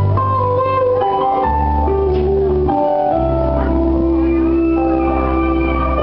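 A small live band playing an instrumental passage: acoustic guitar over long held bass notes and sustained chords that change every second or two.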